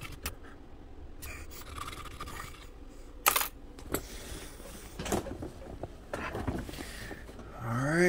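Faint scraping of a metal file across a steel RC-boat flex cable, cutting the slot for the drive dog grub screw, with a sharp metallic click about three seconds in and a few lighter clicks after.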